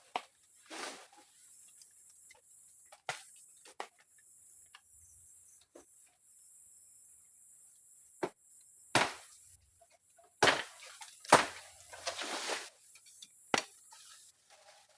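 Irregular knocks, clicks and rustling or scraping from hands-on camp work, with the loudest cluster a little past the middle, over a steady high hiss.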